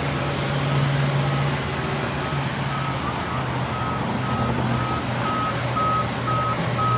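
Sawmill band saw running steadily with a low motor hum as a wooden board is fed through the blade. A short high beep repeats about twice a second over it.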